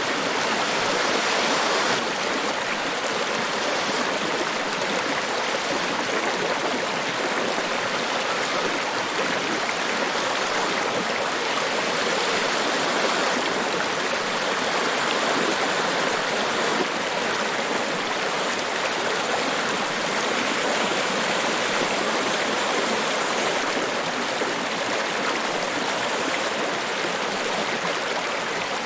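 Niagara Falls: water rushing and pouring in a steady, unbroken hiss that stays even throughout.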